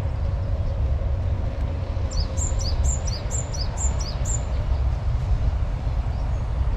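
A bird calling a quick series of about six short, high notes, each falling in pitch, roughly two a second, over a steady low rumble.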